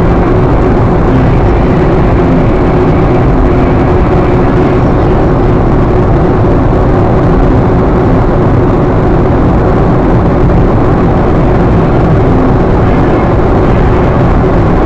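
Steady driving noise of a car at highway speed, heard from inside the cabin: engine hum and tyre and road rumble that stay even throughout, with no gear changes or other events.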